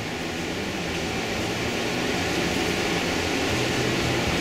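Steady rushing background noise with a faint low hum, slowly getting a little louder; no distinct pen strokes stand out.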